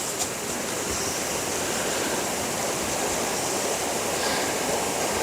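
River water rushing over rocks: a steady, even rush of flowing water.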